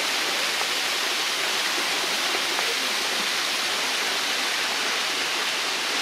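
Several streams of a waterfall spill down a rock face into a pool, making a steady, even rush of falling water.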